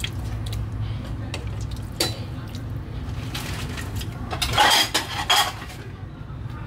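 A metal ladle clinking against an aluminium pot and ladling soup into a ceramic bowl: scattered clinks, with a louder stretch of scraping and pouring about four and a half seconds in, over a steady low hum.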